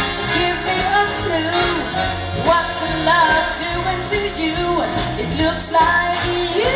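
Big band playing live with a female singer: a wavering vocal line over walking bass notes, drums with cymbals, guitar, keyboard and horns.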